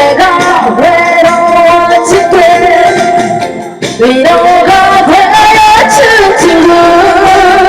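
Korean trot-style song in an instrumental break between verses: a bending lead melody over full backing music, with a brief dip in loudness a little under four seconds in.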